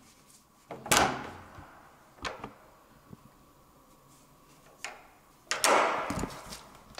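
Front door being opened: the handle and latch give a sharp clack about a second in, then a few lighter clicks, and a second, longer clatter of the door near the end.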